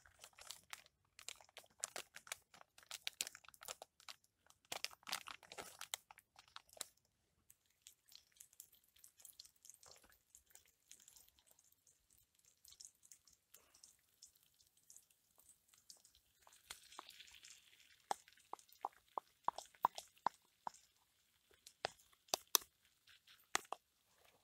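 Chopped shallot frying in oil in a small pan over a tuna-can oil stove: faint, irregular crackling and popping, with a brief sizzle about two-thirds of the way through and sharper pops toward the end.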